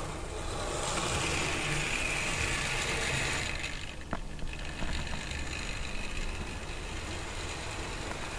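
An N gauge model train running past close by: the small electric motor and the wheels on the track make a whirr that swells for a few seconds, then eases off, with a single click about four seconds in.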